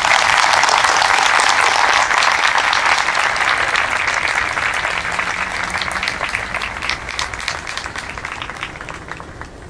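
Audience applauding, loudest at the start and gradually thinning out, with single claps standing out near the end.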